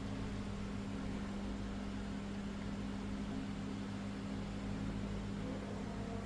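A steady machine hum with a constant low tone, unchanging throughout.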